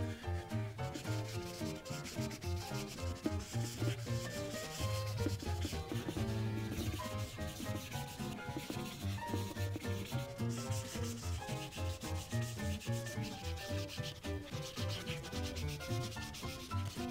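Felt-tip Prismacolor marker nib rubbing across paper in quick back-and-forth colouring strokes, a steady scratchy scrubbing. Soft background music with a changing melody plays underneath.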